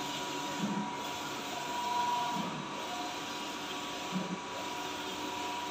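Audley S2000 large-format printer with Epson DX5 printheads printing: a steady machine whine from the print carriage sweeping across the media, with a brief low bump about every two seconds as the carriage reaches the end of each pass and reverses.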